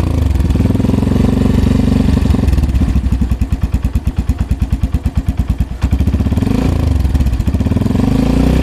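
Yamaha FZS V3's single-cylinder engine running through an aftermarket Akrapovic exhaust with its dB killer and back cap fitted, the quietest setting of the test. It idles with a steady thump and is blipped up in revs at the start, about six and a half seconds in, and again near the end.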